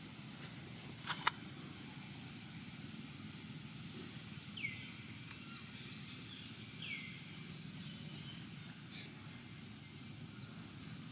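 Steady outdoor background hum with two sharp clicks about a second in and a few short, high, falling chirps.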